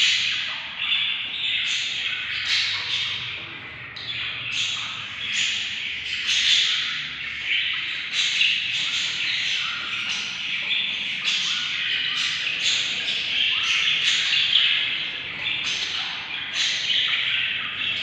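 A brood of budgerigar chicks making a continuous, raspy begging chatter: many short, overlapping calls with no pause.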